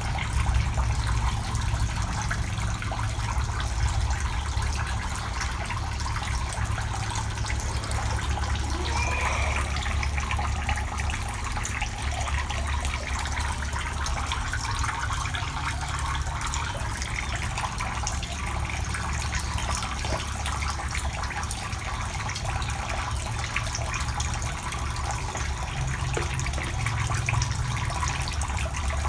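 Water running steadily into a shallow tiled tank, a continuous splashing flow with a low steady hum underneath.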